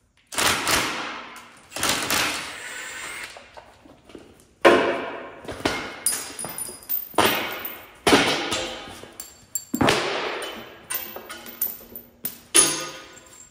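Cordless impact wrench run in repeated short bursts, each starting sharply and trailing off, backing out the bolts that hold old mud flaps on a trailer's tandem axle frame.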